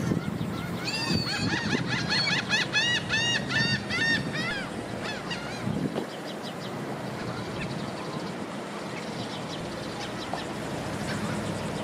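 A gull calling in a fast run of about a dozen repeated cries, about three a second, that fades out after a few seconds into fainter calls, over steady outdoor background noise.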